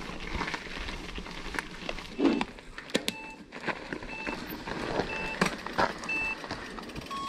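Electronic start countdown beeper counting down a rider's start: four short beeps about a second apart, among clicks, knocks and rustling.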